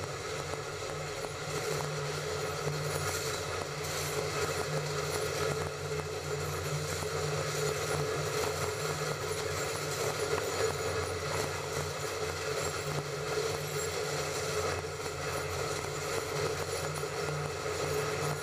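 Train running steadily along the track: a constant mechanical hum and running noise with no distinct events.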